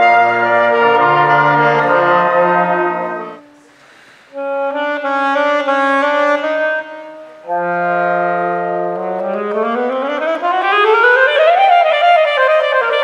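Saxophone playing held notes, several sounding together at first, then a short break about three and a half seconds in. More held notes follow, then a long sweep up in pitch and back down near the end.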